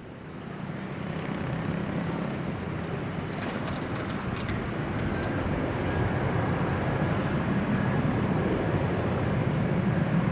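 Jet engines of an Airbus A320 running with a steady drone as the airliner rolls along the runway, fading in over the first two seconds.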